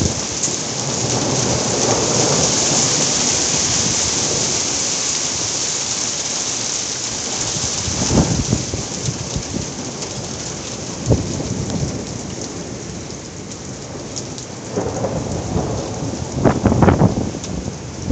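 Heavy thunderstorm rain pouring steadily, with sudden claps of thunder about eight and eleven seconds in and a louder cluster of cracks near the end.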